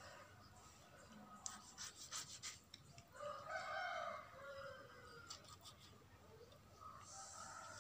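A rooster crows once, about three seconds in: a long call of about two seconds that falls in pitch at its end, with a weaker call near the end. Faint clicks and scrapes of a knife cutting through a chicken carcass.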